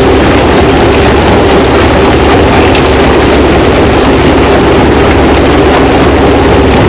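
Stone crushing machinery running with a loud, steady drone and a strong low hum, with no separate impacts standing out.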